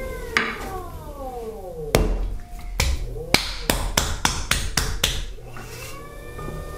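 Electric pottery wheel's motor whine dropping in pitch as the wheel slows down, then a run of about nine sharp slaps, roughly four a second, as a ball of wet clay is slapped and patted into a dome on the wheel head. Near the end the motor whine rises again as the wheel spins back up.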